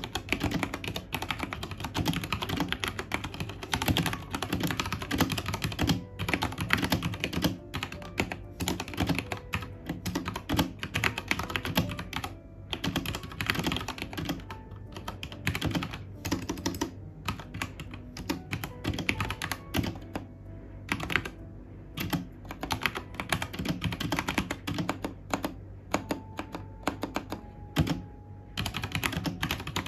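Typing on a Royal Kludge RK837 (RKG68) 65% mechanical keyboard with brown tactile switches and newly fitted keycaps: a steady, fast clatter of keystrokes with a few short pauses.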